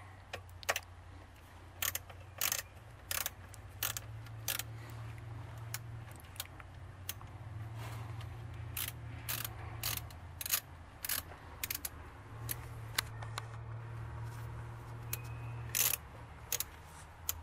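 A hand ratchet and plastic intake parts clicking and clacking as the stock air intake tube is worked loose at the throttle body. Sharp clicks come irregularly, about every half second, some in quick little runs, over a steady low hum.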